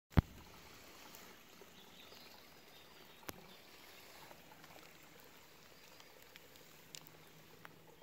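Faint steady rush of a mountain stream, with a sharp click just after the start and a few smaller clicks and ticks later.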